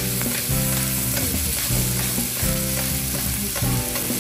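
Food sizzling in beef fat on a teppanyaki iron griddle, with a spatula stirring and scraping across the hot steel plate in short ticks.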